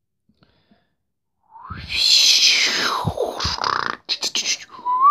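A person's mouth sounds: a breathy tone sliding down from high to low, a quick run of sharp clicks, then a whistled note that rises and holds near the end.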